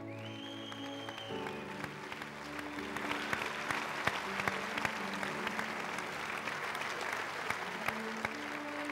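Audience applauding over instrumental background music, the clapping swelling about two seconds in and staying strong, with a high whistle at the start.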